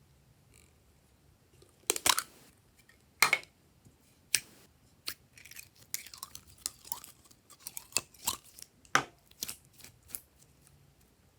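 Glossy slime being pressed and stretched by hand, giving sharp sticky crackles and pops. They begin about two seconds in and come irregularly, several a second at times, until shortly before the end.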